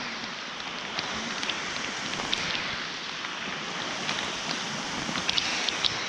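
Steady rain falling on water: an even hiss with scattered sharp taps of single drops.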